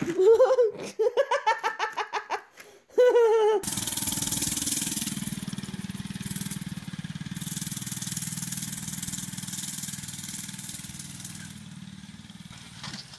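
Excited high-pitched squeals for about the first three and a half seconds. After a sudden cut, the small engine of a mini chopper minibike runs steadily as it rides along, slowly fading toward the end.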